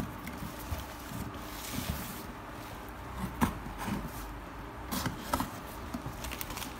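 Box cutter slitting the packing tape along a cardboard box's seam: a few short, scattered scrapes and taps of the blade and hands on the cardboard.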